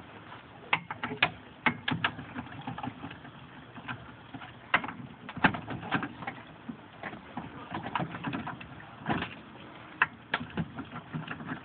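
Four-way cross lug wrench working on a car wheel's lug nuts to loosen them: irregular sharp metal clicks and clanks, a dozen or so, some closely paired.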